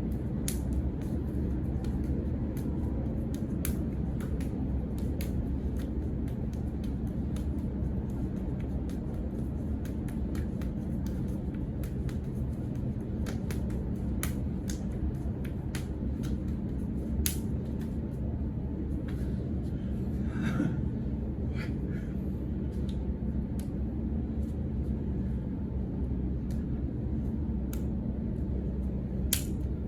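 Sharp, irregular slaps of hands and forearms meeting in a partner hand-strike and blocking drill, over a steady low rumble of room noise, with a brief vocal sound about two-thirds of the way through.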